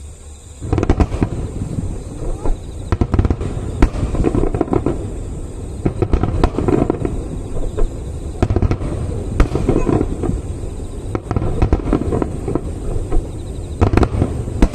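Fireworks finale barrage: a dense, continuous run of aerial shell bursts and rapid crackling, with sharper loud bangs standing out among them. It starts about a second in and goes on without a break.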